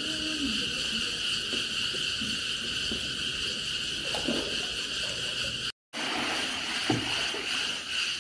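Steady high-pitched chirring of insects, with soft splashing of swimmers in a pool underneath. The sound drops out for a moment about six seconds in.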